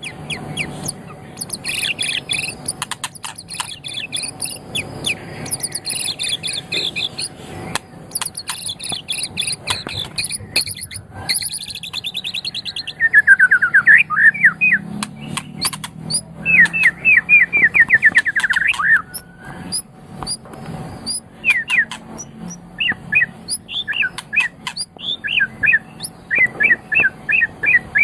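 Murai batu (white-rumped shama) singing a long, varied song of rapid trills and whistled phrases. Roughly halfway through comes a loud, fast run of repeated notes.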